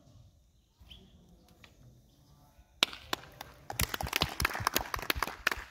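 A small group of people clapping by hand: a single sharp clap about three seconds in, then many quick, irregular claps for about two seconds.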